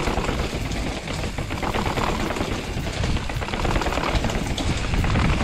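A mountain bike rolling fast over rough, wet pavement: tyre noise and a rapid run of rattling clicks from the bike, over a heavy wind rumble on the riding camera's microphone.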